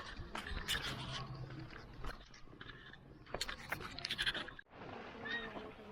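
Birds calling at a nesting colony: bursts of harsh, chattering calls, then a sudden break about four and a half seconds in, followed by short repeated chirps.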